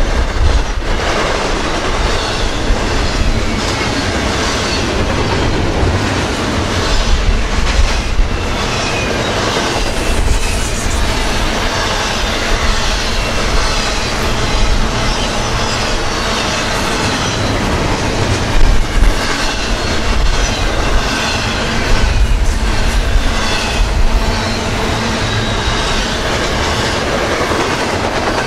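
Double-stack intermodal freight train's well cars rolling past at close range: a steady rumble and rattle of steel wheels on the rails, with a few louder clanks.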